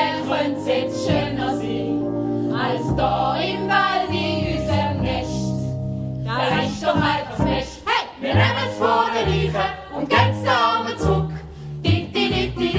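A group of voices singing a stage-musical song over instrumental backing, with a low bass line moving note by note. The voices come in more strongly about halfway through.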